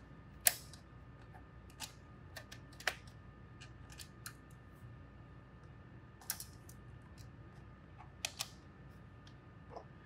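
Scattered light clicks and taps of hands handling the plastic bottom case of an HP Pavilion 15 laptop, about ten of them at irregular intervals, the sharpest about half a second in.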